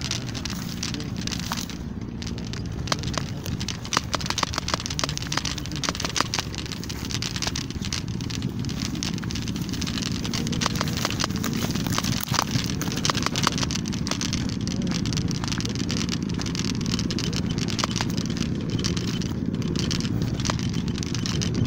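Movement along a dirt path strewn with dry straw and twigs: a steady low rumble with frequent sharp crackling clicks.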